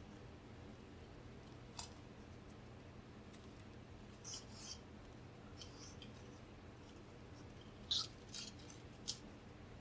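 Faint, scattered small clicks and scratches of thin beading wire and glass seed beads being handled and twisted, over a low steady hum; the sharpest click comes about eight seconds in.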